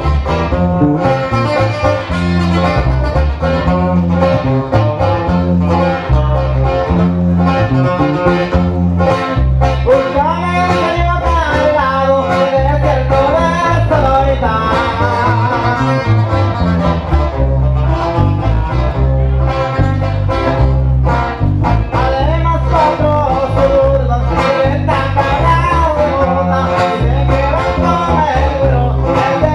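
Live sierreño band music: a twelve-string acoustic guitar strumming over bass and drums, with a man's singing voice coming in about ten seconds in.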